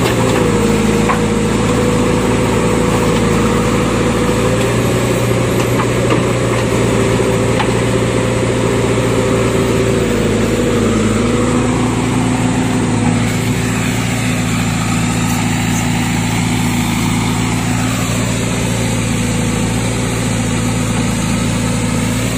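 Diesel engines running steadily: a JCB 3DX backhoe loader working its arm and bucket and a Mahindra tractor idling, the engine note shifting slightly around the middle.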